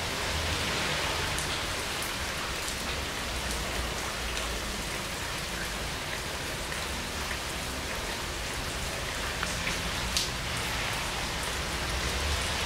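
Heavy rain falling steadily on leaves: a continuous hiss of rain with scattered individual drop taps, one sharper tap about ten seconds in.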